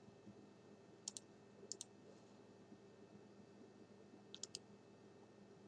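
Faint computer mouse clicks over near-silent room tone: a quick double click about a second in, another just before two seconds, and a third past four seconds.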